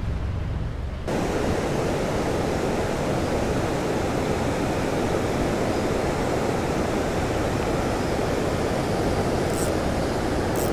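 Steady rush of a creek waterfall, cutting in abruptly about a second in and then holding even. Two faint ticks come near the end.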